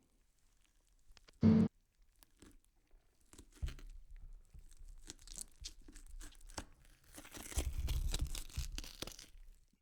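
A short, sharp knock, then irregular scraping and crunching with many small clicks, loudest near the end.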